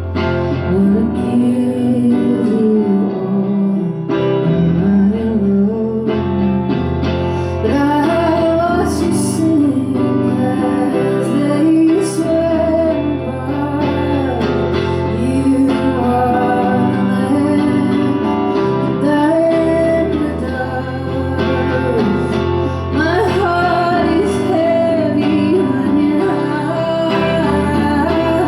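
Live music: a woman singing a slow song, accompanied on guitar.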